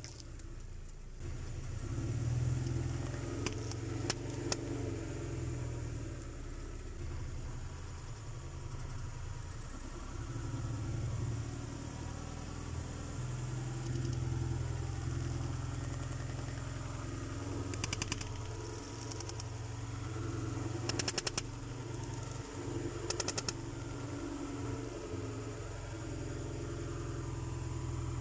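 Car engine running slowly, close by, with a steady low hum, broken a few times by short bursts of rapid clicking or crackling.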